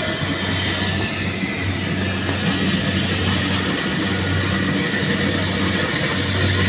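Rice combine harvester running steadily, its engine giving a constant low hum under the broad clatter and rush of the machinery.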